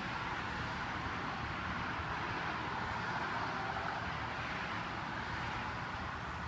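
Steady outdoor background noise: an even hiss with a low rumble underneath, unchanging throughout.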